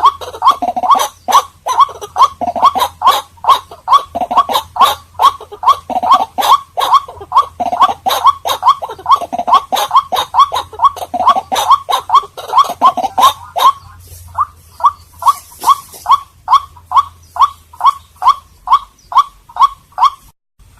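White-breasted waterhen calling: a rapid, loud series of short, harsh repeated notes, about three a second. About two-thirds of the way through, the lower, fuller part of the call drops away and thinner single notes keep the same pace.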